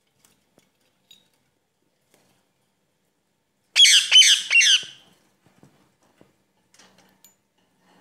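Ringneck parakeet giving three quick, harsh squawks about halfway through, with a few faint clicks before and after.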